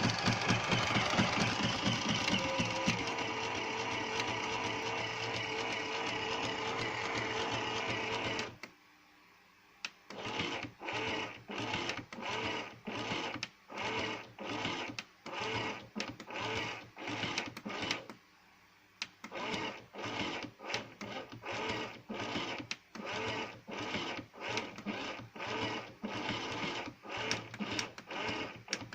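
A small electric motor running with a steady, pitched hum, then switching to a rhythmic pulsing mode, about one and a half pulses a second, with two brief pauses.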